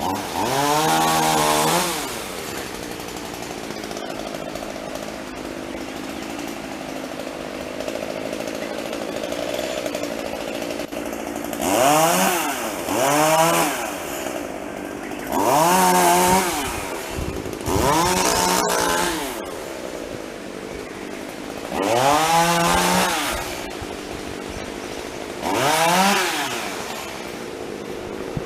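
A small engine idling steadily, revved up and back down about seven times, each rev lasting a second or so.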